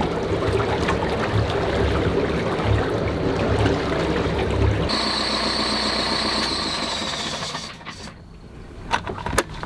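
Boat engine running on a cleaning run with Seafoam added to its crankcase oil. Its low throb changes about five seconds in, the sound falls off sharply about eight seconds in, and a few sharp clicks follow.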